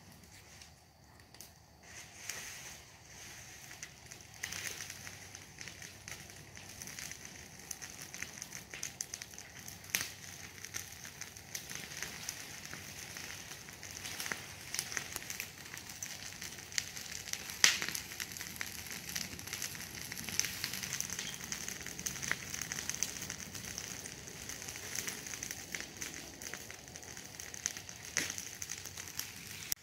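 Night-time insects chirring with a steady high tone, under a dense irregular crackling with one sharper click about two-thirds of the way through.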